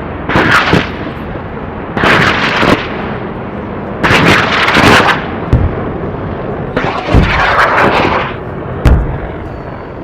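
Heavy gunfire sound effect that starts abruptly: a loud burst of shots roughly every two seconds over a continuous echoing rumble, with one sharp crack near the end.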